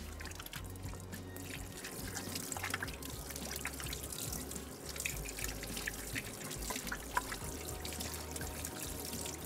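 Batter-coated chicken and a breaded patty deep-frying in oil on a low flame: a steady sizzle full of fine crackles and small pops.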